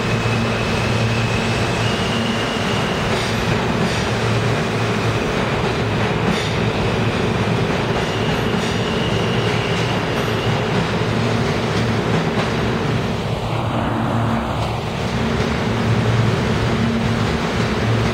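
Stainless-steel New York City subway train running along an underground station platform: a steady loud rumble of wheels on rail with a low hum, a faint high motor whine and light clicking over the rail joints.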